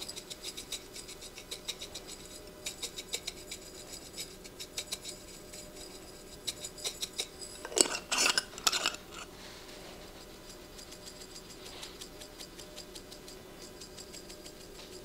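Glass spice shakers being shaken over toast: everything-bagel seasoning and red pepper flakes rattling and ticking out through the shaker tops in quick runs of small clicks. A louder clatter comes about eight seconds in, and the ticking goes fainter after that.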